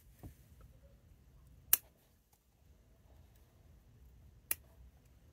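Bonsai scissors snipping through conifer shoots: two sharp clicks, the first the louder, about three seconds apart.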